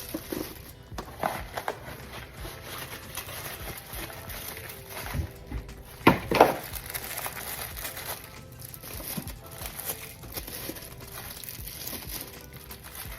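Light background music over the crinkling of snack packaging and clunks of items being handled and put away, with two louder knocks about six seconds in.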